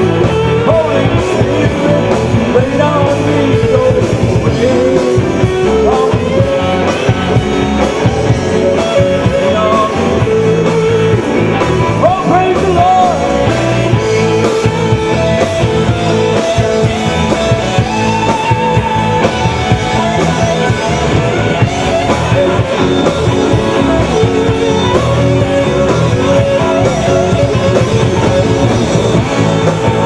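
Live rock band playing: electric guitars and electric bass over a drum kit, one loud, steady groove with a melody line winding over it.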